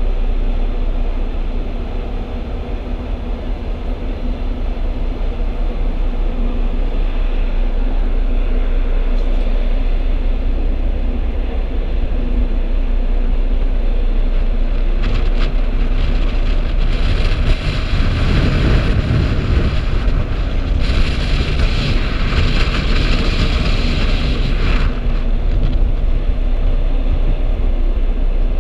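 Steady low drone of a car ferry's engines heard from the open deck, with wind rumbling on the microphone. About halfway through a louder rushing hiss comes in for several seconds, then eases off.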